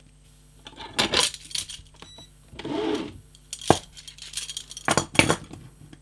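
Metal handcuffs being handled: scattered metallic clinks and rattles, with sharp clicks about a second in, near four seconds, and twice around five seconds.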